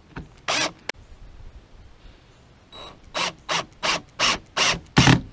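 Cordless drill driving a screw in short bursts: one near the start, then six quick bursts about a third of a second apart in the last two seconds.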